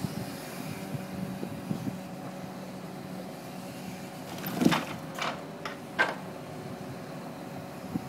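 Truck-mounted hydraulic timber crane running with a steady hum from the lorry's engine and hydraulics. About halfway through come several hard wooden knocks over a second and a half, as the grab sets a load of logs down on the pile.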